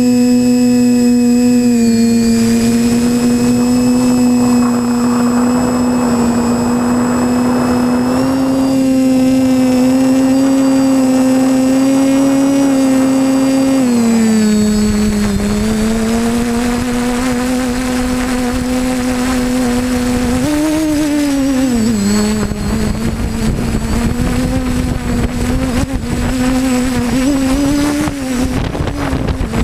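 Quadcopter drone's motors and propellers whining steadily, heard from its own camera. The pitch drops about 14 seconds in and wavers a few seconds later as the motor speed changes, and wind rumbles on the microphone through the second half.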